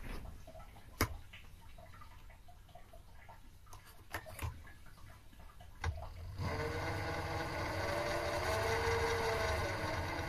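A few sharp clicks, then about six seconds in a mini metal lathe's motor starts and runs steadily, spinning the three-jaw chuck, with a whine whose pitch rises and falls slightly as the speed changes.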